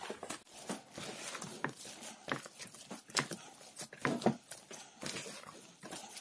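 Hands mixing flour into wet yeast dough in a plastic bowl: irregular soft slaps and squishes, several a second.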